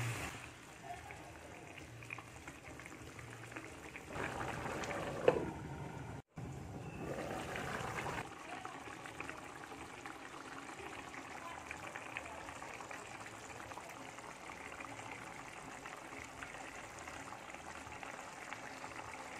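Chicken and grated coconut simmering in spiced liquid in a frying pan, a steady faint bubbling and crackling. A louder stretch midway holds one sharp knock.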